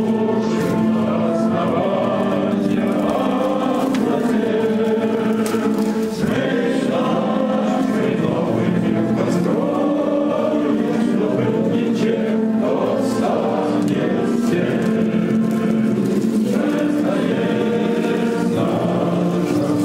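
A choir singing a slow song in long held notes.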